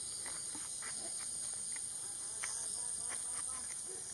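Steady high-pitched night insect chorus, a continuous shrill trilling, with faint scattered short sounds beneath it.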